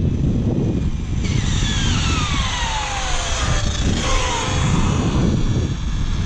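An Arrma Limitless RC car's TP Power 4070 brushless motor and drivetrain whining, the pitch falling steadily over about two seconds as the car slows after a 6S speed run, with a shorter falling whine near the four-second mark. Heavy wind rumble on the microphone.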